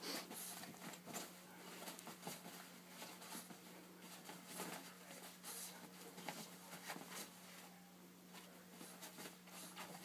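Faint, irregular soft pats and rustles of a Boston terrier puppy's paws scuffing the duvet as he spins after his tail, over a steady low hum.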